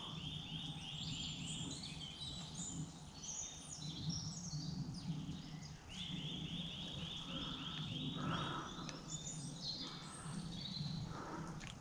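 Small songbirds singing. One bird gives a fast run of evenly spaced notes at one pitch, lasting a couple of seconds, once at the start and again about six seconds in, with scattered higher chirps from other birds between. A faint steady low hum runs underneath.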